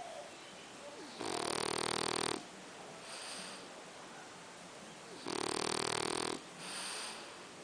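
A pet snoring: two loud, fluttering snores about four seconds apart, each lasting about a second, with softer breaths between them.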